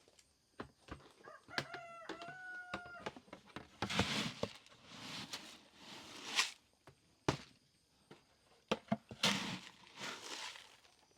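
A rooster crows once, about one and a half seconds long, near the start. Loud rustling and crunching bursts and scattered clicks follow.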